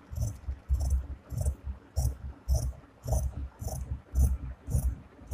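Scissors cutting through fabric in steady, even snips, about two a second. Each snip is a short crisp hiss with a low thud under it.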